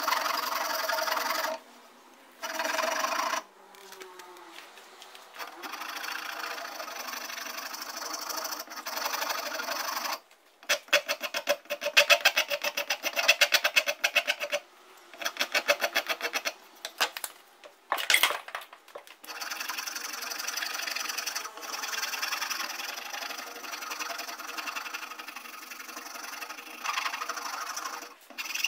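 Rubbing and scraping of hand abrasive work on an antique axe, such as filing or sanding: stretches of steady rubbing with short pauses, and a run of rapid back-and-forth strokes in the middle.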